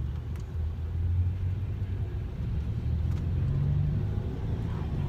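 Car engine and road rumble heard from inside the cabin of a moving car: a low, steady drone, with the engine note stepping up a little over three seconds in.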